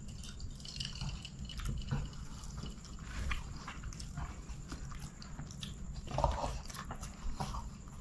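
Close-miked eating: a man chewing chicken biryani with wet mouth clicks and smacks, with one louder mouth noise about six seconds in.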